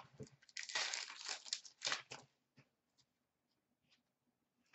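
A 2013-14 Upper Deck Fleer Showcase hockey card pack being torn open by hand, its wrapper crinkling in a quick flurry from about half a second in to about two seconds.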